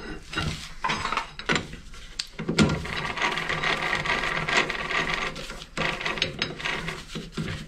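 17mm hex bar being set in a lathe's three-jaw chuck and clamped with the chuck key: metal clicks and knocks as the bar is handled and the jaws close, with a stretch of scraping, grinding metal in the middle as the key winds the jaws in.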